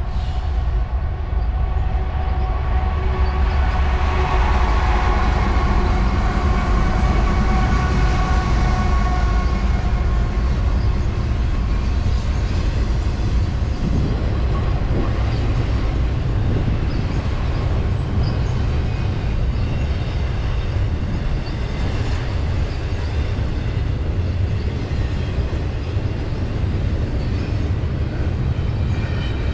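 A heavy freight train passing close by: three GE diesel locomotives go by in the first few seconds with their engines running, a rising and falling whine over a deep rumble. Then a long string of double-stack intermodal cars rolls past, its wheels rumbling steadily on the rails.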